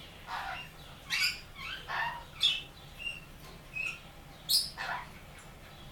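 Sun conure giving a string of short, separate calls, with two brief whistle-like notes about the middle.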